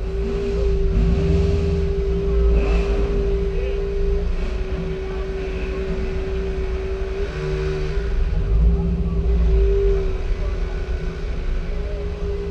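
A car engine running at a slow crawl: a deep rumble with one steady drone, wavering slightly a couple of times as the throttle changes a little. Faint crowd voices lie beneath.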